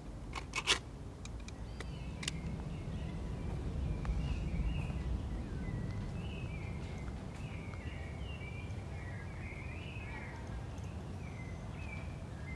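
A few sharp clicks in the first second as a film cartridge is pushed into a handheld movie camera. Then outdoor ambience: birds chirping over a steady low rumble.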